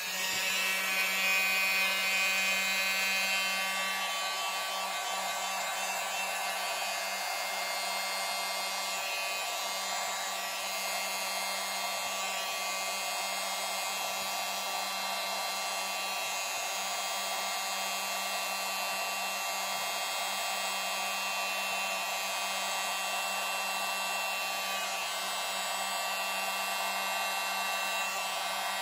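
Handheld blower switched on and running steadily: an airy rush with a steady motor whine, a little louder for the first few seconds. It is blowing wet acrylic paint outward across a tile to make a bloom.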